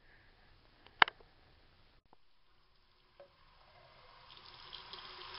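Water from a bathroom faucet running into a plastic cup, starting about halfway and growing louder to the end. A single sharp click about a second in.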